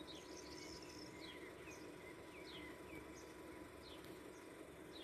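Faint distant birdsong in a quiet open field: short high chirps every half second or so, over a faint steady hum.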